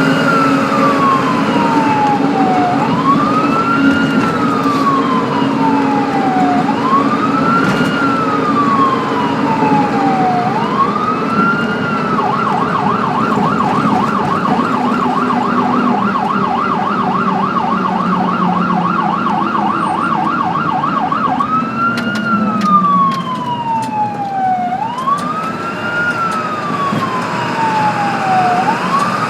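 Ambulance siren cycling through a slow wail, each sweep rising quickly and falling slowly over about four seconds. About halfway through it switches to a fast yelp of about four rises and falls a second, then goes back to the wail with a few sharp clicks. A vehicle engine hums steadily underneath.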